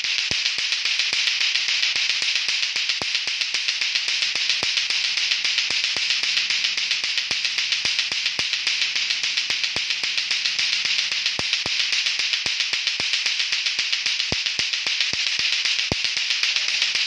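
Lato-lato clacker toy: two hard plastic balls on a string clacking against each other over and over in a fast, steady, unbroken rhythm.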